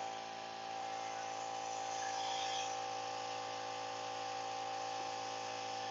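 A steady hum runs throughout, with a faint rubbing of a cheesecloth wiped over a plastic football helmet's shell, a little more audible about two seconds in.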